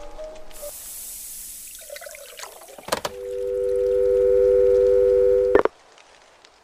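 A loud, steady electronic tone of two close pitches, held about two and a half seconds and cut off suddenly, after a few seconds of faint hiss and the last notes of music.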